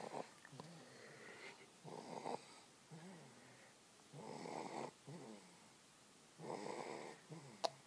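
Snoring: four long, rasping in-breaths about two seconds apart, each followed by a shorter, lower breath out. There is a sharp click near the end.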